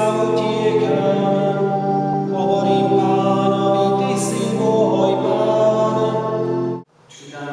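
Two-manual electronic organ playing sustained chords with singing over them; the music cuts off suddenly near the end.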